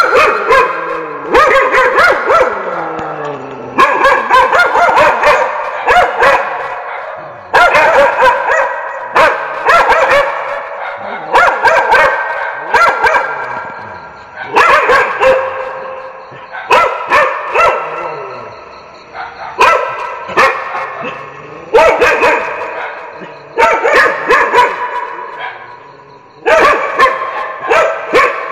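Dogs barking in bursts of a few barks each. A new burst comes every couple of seconds, with short lulls in between.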